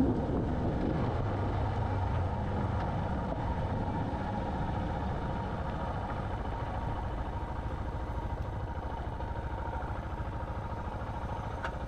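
Suzuki DR650 single-cylinder motorcycle engine running steadily while riding, a low drone that eases off slightly toward the end.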